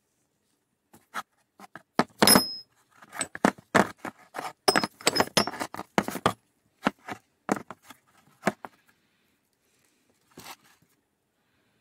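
Chrome-vanadium oxygen-sensor sockets being handled in a plastic case: a run of clinks and knocks, metal on metal and on plastic. The loudest, with a short metallic ring, comes about two seconds in. It thins to a few scattered knocks, with one last knock near the end.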